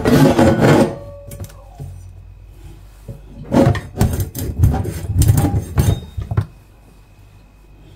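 Handling noise at a steel sink: knocks and scrapes of a boti blade and a slippery spiny eel against a plastic bowl, in two spells, at the start and again from about three and a half to six and a half seconds in.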